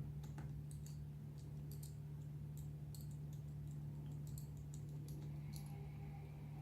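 Faint, scattered small clicks and ticks of a small screwdriver and fingers working tiny screws out of a laptop screen panel, over a steady low hum.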